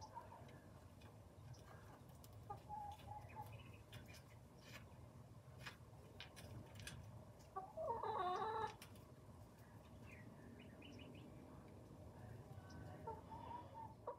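Hens clucking softly now and then, with one louder, wavering call lasting about a second around eight seconds in.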